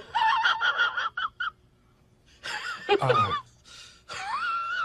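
Domestic cat vocalising: a run of short chirping meows, another meow about halfway through, then a longer, wavering meow starting near the end.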